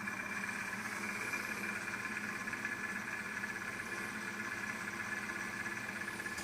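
Izola Apollo 636W washing machine running with a steady hum and hiss, even and unchanging.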